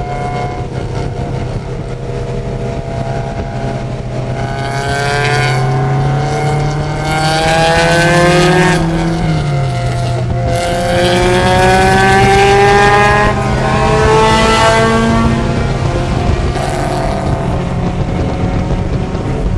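Race car engine, heard from the cockpit, accelerating hard through the gears. Its pitch climbs and drops back at several upshifts, over a steady hiss of tyres and spray on the wet track.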